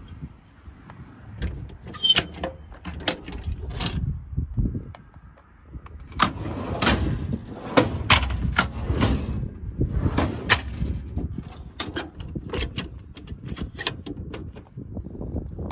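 A run of sharp clicks and knocks over a low rumble, coming about two a second in the middle stretch.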